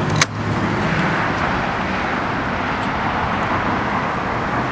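Steady background traffic noise: an even rumble and hiss with no clear engine rhythm. A single sharp click comes just after the start.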